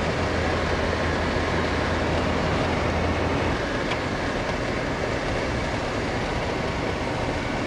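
Steady engine and road noise of a moving vehicle, heard from on board, with a low hum that eases off about three and a half seconds in.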